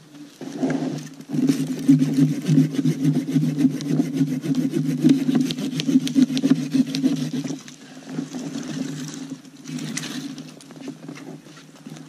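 Sledopyt folding hand saw cutting through a thin, frozen standing tree trunk near its base in quick back-and-forth strokes. The strokes are loudest from about a second in until a little past the middle, then go on more quietly.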